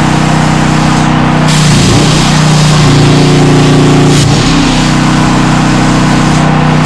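CNC plasma table cutting sheet steel: a steady plasma arc hiss with a humming tone underneath that steps to a different pitch every second or two as the torch moves along the cut.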